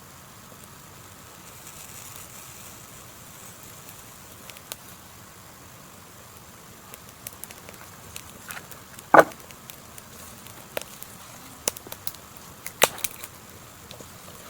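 Dry straw and twig kindling crackling as a small fire catches: scattered sharp snaps over a faint hiss, growing more frequent, with a louder snap about nine seconds in and another near thirteen.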